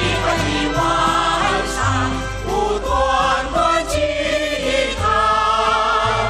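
A group of women and men singing a Chinese popular song together into microphones, over instrumental accompaniment with a steady bass line.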